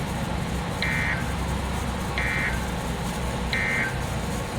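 Three short Emergency Alert System end-of-message data bursts from a NOAA Weather Radio broadcast: buzzy digital tones about a third of a second each, about 1.3 s apart, signalling the end of the alert. A low steady hum runs underneath.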